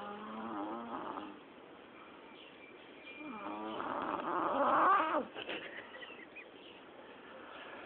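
A person snoring: two pitched snores about three seconds apart, the second longer and louder.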